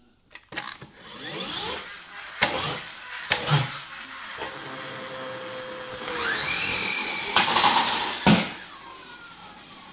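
Flywheel friction motor of a Tonka Clutch Popper toy pickup whirring as the car is rubbed back and forth on a wooden floor, the whine rising in pitch as the flywheel spins up, with a few sharp knocks of the car against the floor. Near the end the whirring drops to a lower, steadier level with a falling whine as the car is let go.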